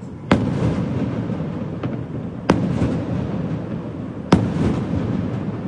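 Fireworks exploding: three loud bangs about two seconds apart, each trailing off into a rumbling crackle, with a fainter pop between the first two and a steady low rumble of the display throughout.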